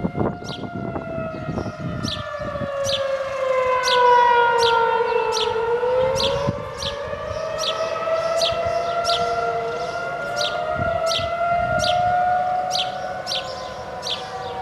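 Civil defence air-raid siren sounding a test wail. Its tone falls slowly for about five seconds, then rises again and wavers.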